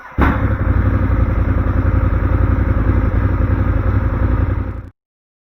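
Ducati Monster 821's L-twin engine running loud and steady through an aftermarket Termignoni exhaust silencer, with a low, even pulse; it breaks off suddenly about five seconds in.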